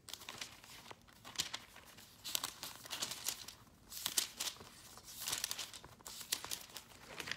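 Thin Bible pages being leafed through: a series of soft paper rustles and flicks, roughly one a second.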